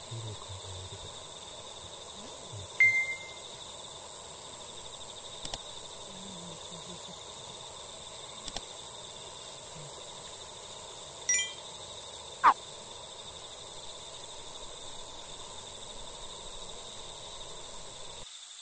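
Dusk lakeside ambience: a steady high insect drone over a low outdoor hiss, with a few short bird calls, the last a falling whistle about twelve seconds in.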